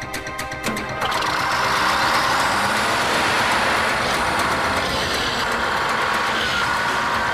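Bulldozer's diesel engine running hard as it works, cutting in loudly about a second in over fading music, with a faint high whine above it.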